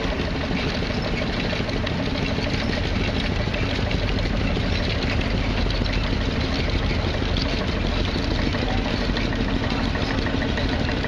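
Old tractor engine running steadily, an even rumble with no change in speed.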